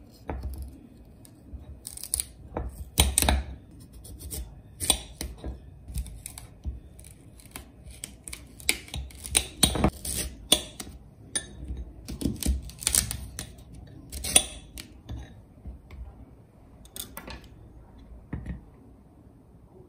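Small kitchen knife cutting through crisp celery stalks: irregular sharp, crunchy snaps of the blade, one to three a second, some much louder than others.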